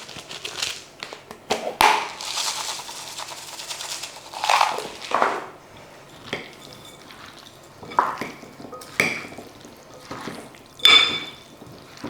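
A utensil clinking, knocking and scraping against a bowl of salad, with one sharp ringing ping about eleven seconds in.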